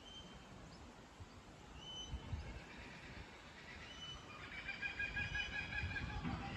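Birds calling: short high single notes about every two seconds, and a denser run of chattering calls from about four to six seconds in, the loudest part.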